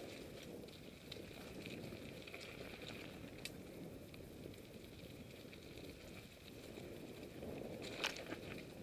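Mountain bike rolling along a dirt-and-gravel trail: steady tyre noise with scattered small clicks and rattles from the bike. There is a sharper click about three and a half seconds in and a short cluster of knocks near the end.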